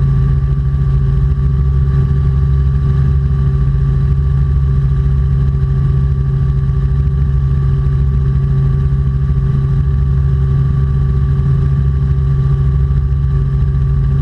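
Robinson R44 Clipper II helicopter in cruise flight: its six-cylinder Lycoming piston engine and rotors make a loud, steady drone with a deep low rumble and a few constant tones above it.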